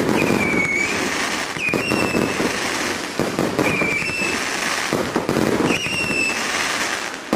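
Multi-shot fireworks cake firing a rapid barrage: a dense run of bangs and crackling. Four short, high whistles sound over it, about every two seconds.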